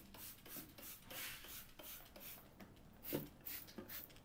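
Faint, quick back-and-forth scrubbing strokes on greasy ceramic wall tiles, about three a second, with a couple of knocks about three seconds in.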